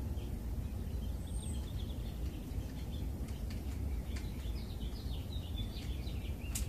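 Outdoor background: a steady low rumble with faint birds chirping now and then.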